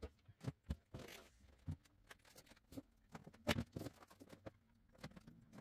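Light knocks and clunks with a little rustling as household items are handled and set down on a wall shelf above a washer and dryer; the loudest knock comes about three and a half seconds in.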